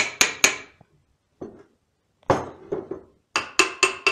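Hammer blows knocking the wooden staves of a freshly raised bucket down level, each a sharp knock with a short ringing clink. Three quick blows at the start, a few lighter knocks in the middle, then another quick run of blows, about four a second, near the end.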